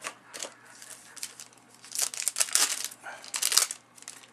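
Cellophane wrapper of a 1990-91 Fleer basketball cello pack crinkling as it is pulled open by hand. It comes in irregular bursts, loudest about two seconds in and again near the end.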